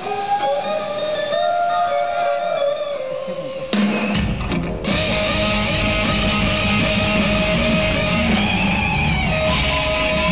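Live rock band: an electric guitar plays a blues solo alone in long, bent notes. About four seconds in, a drum hit brings the drums and bass back in, and the full band plays on under the guitar.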